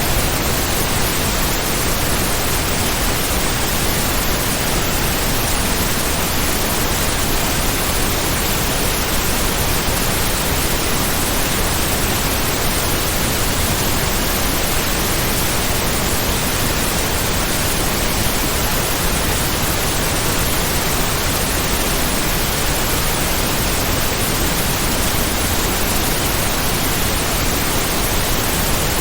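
Heavy rain noise: a continuous, even hiss spread from deep low rumble up to high treble, with no separate drops, gusts or thunder and no change in level.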